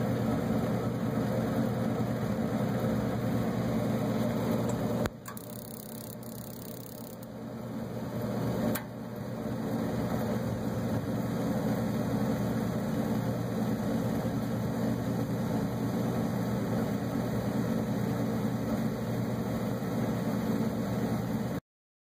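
Bard gas furnace unit running with a steady mechanical hum from its motors and fans. About five seconds in the hum drops sharply with a click, then builds back and returns to full with another click a few seconds later.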